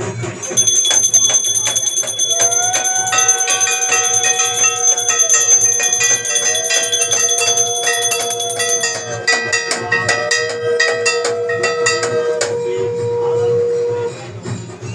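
Puja hand bell rung rapidly and continuously during Kali Puja worship, a dense shimmering ringing that stops about twelve seconds in. A long held note joins about two seconds in and lasts nearly to the end, with three slow rising-and-falling tones over it.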